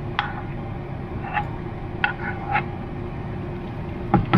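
Steady running hum of a camper van's heater furnace, with about five short, light clicks spread through it.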